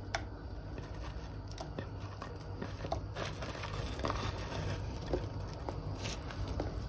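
Cubes of stale bread dropped by hand into a pot of tomato soup and shifted on a wooden plate: faint, scattered soft taps, plops and rustles.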